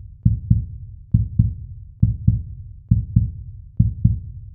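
A normal heartbeat, the S1 and S2 heart sounds: paired low thumps (lub-dub) five times, about one beat every 0.9 seconds.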